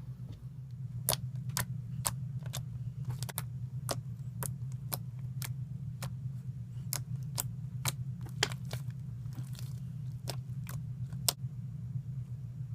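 Crunchy slime with chopped plastic straw pieces being squeezed and kneaded by hand, giving sharp clicking pops about two a second that stop shortly before the end. A steady low hum runs underneath.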